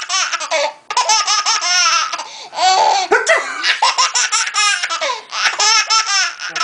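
Baby laughing hard in long runs of rapid, high-pitched laughs, breaking briefly about a second in and again near the end.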